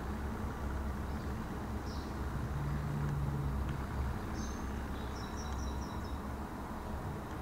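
Outdoor background: a steady low rumble with a brief hum near the middle, and a few short, high bird chirps, most of them in the second half.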